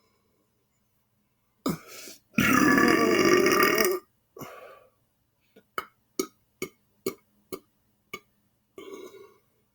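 A man's long, loud belch lasting about a second and a half, with a shorter belch just after it. It is followed by a string of about seven short, sharp clicks, roughly two a second.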